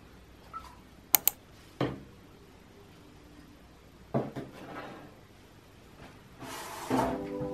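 A few sharp clicks and light knocks of small objects being handled in a small room, with a brief hiss near the end.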